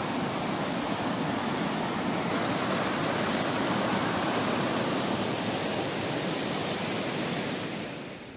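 Fast, shallow stream rushing over rocks, a steady churning rush of water that fades away near the end.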